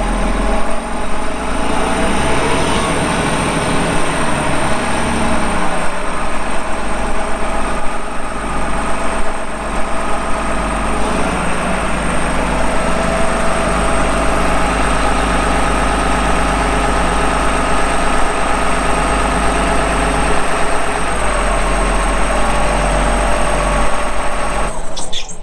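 John Deere 772CH motor grader's diesel engine running at a steady idle after a cold start, with a thin high whine over it; the sound cuts off suddenly near the end.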